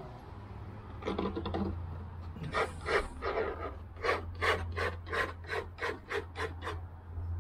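Palette knife scraping wet oil paint off a stretched canvas in a run of short strokes, faster in the second half at about three strokes a second: the grey sky is being scraped out before it is repainted.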